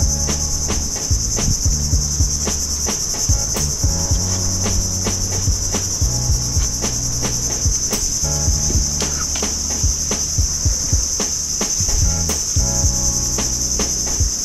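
Steady, high-pitched drone of insects, with frequent small clicks and low knocks over it.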